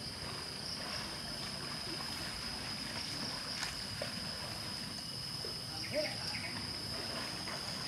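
Water sloshing and splashing as Sumatran elephants are scrubbed and wade in a shallow pond, under a steady high-pitched insect drone.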